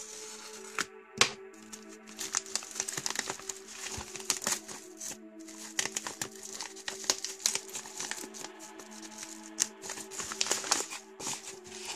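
Padded paper mailer being slit with a hobby knife and torn open, paper crinkling and crackling with a sharp click about a second in, over steady background music.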